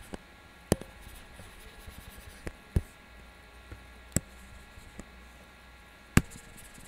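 Sharp taps of a stylus on a tablet screen, about five of them at irregular intervals, the last the loudest.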